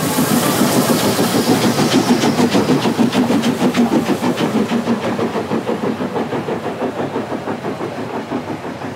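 Narrow-gauge steam locomotive passing with a train. Its exhaust chuffs in a quick, steady rhythm over a hiss of steam. The carriages follow, and the rhythm fades a little near the end.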